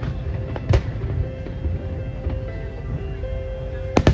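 Fireworks bursting over music: one sharp bang about a second in and two more in quick succession near the end.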